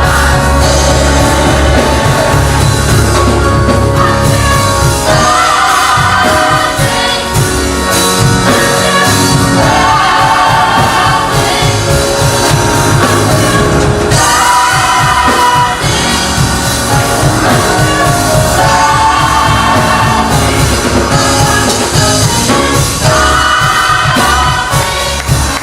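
Gospel vocal group singing with a full band: bass, drums and keyboard in a steady beat.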